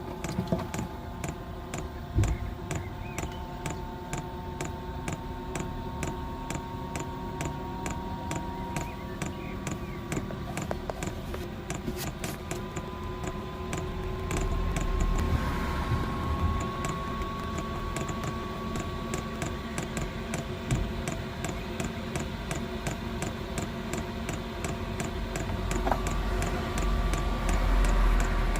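Diesel air heater starting up: its fuel dosing pump ticking steadily, about two to three times a second, over the whine of the blower fan, which slowly rises in pitch.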